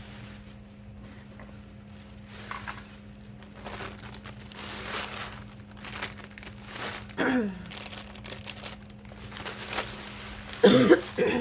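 Thin plastic shopping bag crinkling and rustling as hands rummage through it. A short vocal sound comes about seven seconds in, and a louder one near the end.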